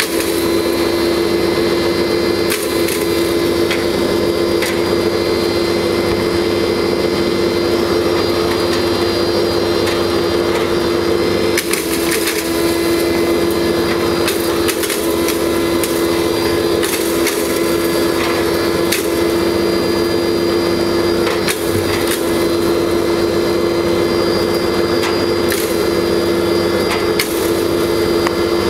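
Pulverizer (masala grinder) of a C-707 combined mini rice mill running with a steady hum while grinding hard dried turmeric pieces, which crack and crunch against the grinder as they are fed in.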